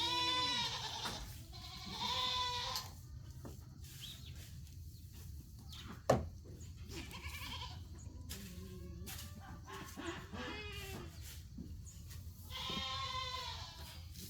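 Dairy goats bleating, with long wavering calls at the start, about two seconds in and near the end, and quieter calls between. A single sharp knock comes about six seconds in.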